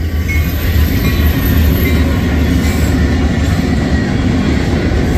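Union Pacific EMD SD70M diesel locomotive passing close by at the head of a freight train. It makes a loud, deep, steady engine drone over the continuous noise of steel wheels on rail.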